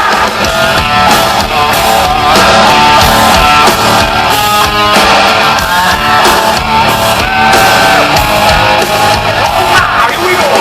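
Rock band playing live at full volume: electric guitars and drums under a sung lead vocal.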